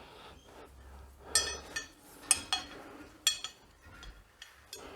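Light metallic clinks and taps from metal parts being handled: about eight sharp strikes with a short ring, some in quick pairs, spread over a few seconds.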